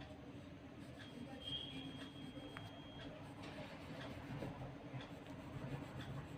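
Faint pencil lead rubbing and scratching on paper as the brick pattern of a drawing is shaded.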